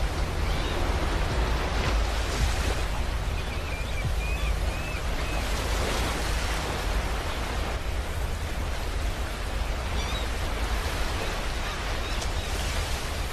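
Ocean waves washing and breaking on a shore in a continuous dense rush that swells and ebbs every few seconds.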